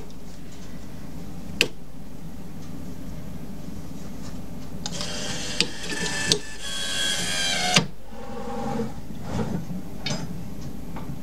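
Small CNC lathe with its spindle stopped, moving between operations: a sharp click, then a few seconds of whirring from the slides moving that cuts off suddenly, then a few lighter clicks.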